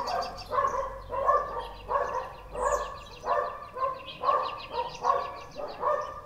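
Shelter dogs barking in their kennels, a steady string of repeated barks at about one to two a second.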